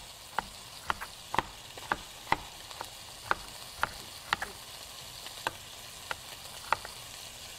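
Chef's knife chopping raw baby red potatoes on a cutting board: a quick, irregular run of sharp taps, about two a second, that stops near the end. Under it runs the steady sizzle of chicken breasts browning in a skillet.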